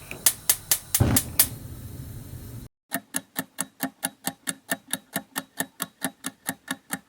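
Gas stove: a few clicks over a hiss with a heavier burst about a second in, then, after a short pause, the burner's igniter clicking rapidly and evenly, about five clicks a second, until it stops near the end.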